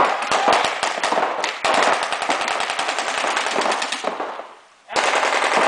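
Paintball markers firing Reball rounds in rapid strings, many shots a second. The firing trails off about four seconds in and starts again abruptly about a second later.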